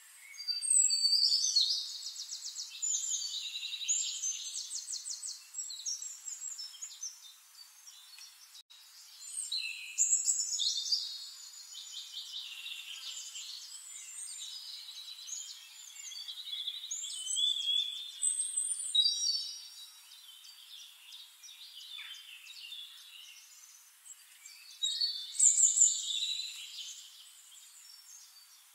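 A bird singing: phrases of rapid, high trills and chirps, with short pauses between them, loudest about a second in, around ten seconds in and near the end.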